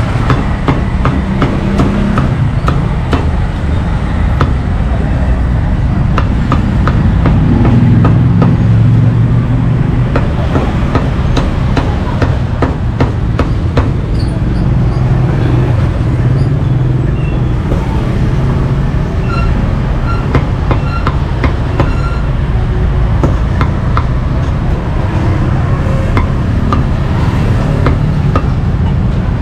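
Cleaver chopping roasted meat, a run of sharp, irregular knocks over the steady low rumble of street traffic.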